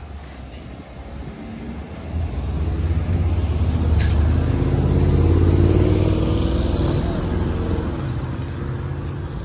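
A motor vehicle driving past, its engine getting louder to a peak about halfway through and then fading away.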